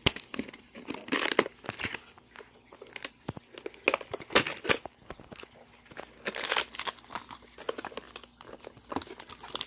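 Plastic and foil toy packaging crinkling as the packets are handled and pulled out of the container, coming and going in irregular spells with a few sharper crackles.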